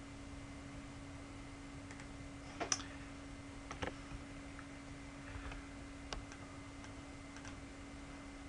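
A few faint computer mouse clicks, scattered and irregular, the loudest about three seconds in, over a steady low hum.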